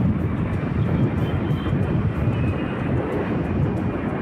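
Steady rush of a motorcycle ride through city traffic: engine and road noise mixed with wind buffeting the microphone, strongest in the low range.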